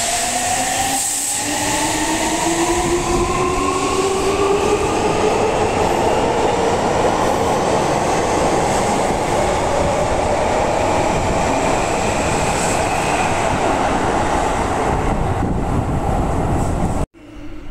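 Seibu Railway electric train pulling out of a subway platform, its motor whine rising in pitch as it accelerates over heavy wheel-on-rail rumble. The sound cuts off abruptly near the end.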